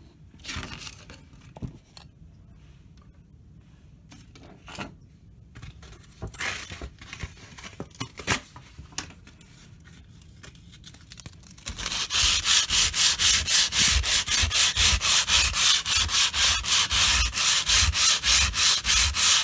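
Sandpaper rubbed by hand over a dried patch of filler, 120 grit to start. Some faint scrapes and handling come first; about twelve seconds in, quick, even back-and-forth sanding strokes begin at about four a second.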